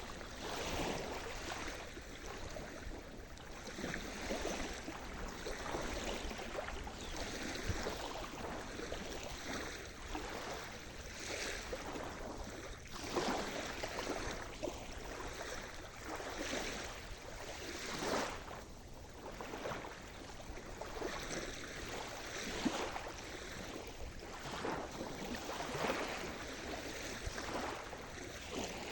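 Sea surf: small waves breaking and washing in one after another, a constant rushing hiss that swells every second or two.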